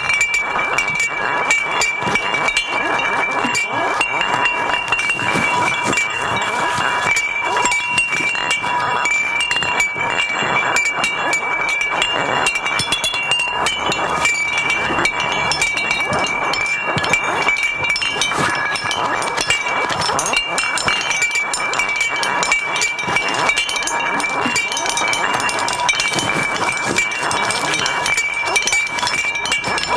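Recyclable waste such as cans and packaging played as instruments: a dense, continuous clinking and rattling, with steady ringing tones held under it.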